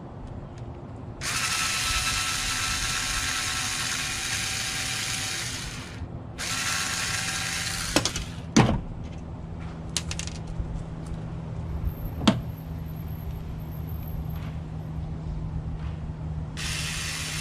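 Power screwdriver running in three bursts to back out a screw: a long run of about four and a half seconds, a short one of about a second and a half, and another near the end. Between them come a few sharp clicks and knocks.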